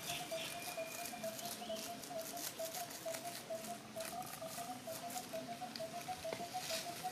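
Plastic snack wrapper crinkling and rustling in irregular little crackles as a macaque picks at it among dry leaves, with a steady, slightly wavering tone in the background.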